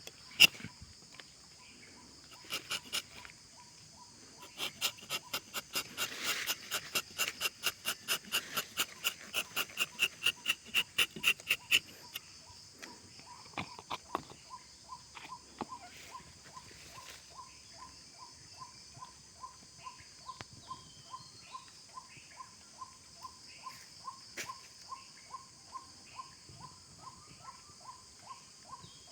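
Steady high buzzing of insects, with a bird repeating a short pitched note about one and a half times a second through the second half. Earlier, a louder run of sharp repeated calls about two a second grows louder, then stops about halfway through.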